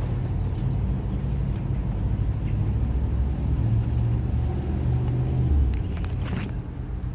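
Low engine rumble of a motor vehicle, building to its loudest about five and a half seconds in and then dropping away, with a few light clicks near the end.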